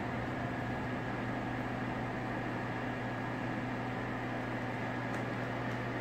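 Electrolux HSPPAN high-speed microwave panini press running in the microwave stage of its cook cycle: a steady low electrical hum over an even rushing noise.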